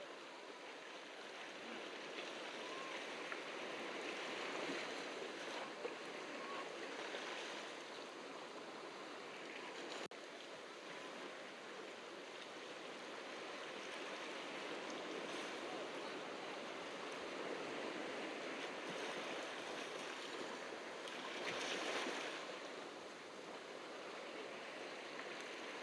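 Ocean surf washing onto a beach: a steady hiss of waves that swells and eases several times, loudest about twenty-two seconds in.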